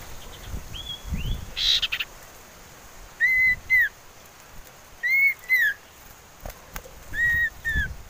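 Common iora whistling: three pairs of short clear notes that rise and fall in pitch, each pair about two seconds after the last, with a single short rising note near the start. A brief scratchy burst sounds between the first note and the pairs.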